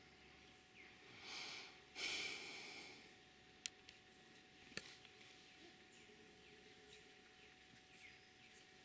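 Near-quiet forest air with faint, short, falling high chirps like small birds. About a second in a soft rush rises, then at two seconds a louder breathy burst fades over a second, like a person sighing close to the microphone. Two small clicks follow.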